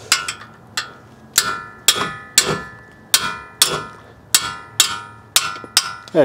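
A hammer strikes a 17 mm wrench fitted on a brake caliper bolt, about a dozen sharp metal-on-metal blows at a steady pace of roughly two a second, to shock the stuck bolt loose. The wrench rings briefly after each blow.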